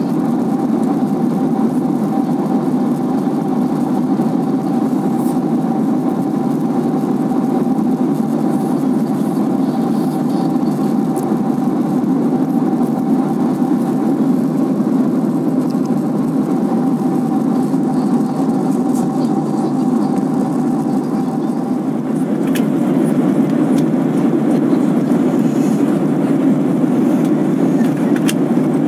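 Steady cabin noise of an airliner in cruise: the even rush of engines and airflow, with a faint steady hum that drops out about three-quarters of the way through, where the noise grows slightly louder.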